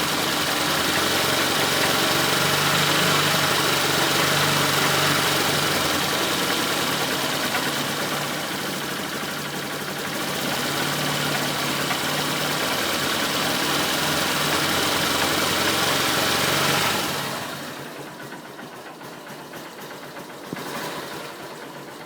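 Engine running steadily with a noise its owner finds strange. About seventeen seconds in, the sound drops off sharply to a much quieter level, with one brief blip near the end.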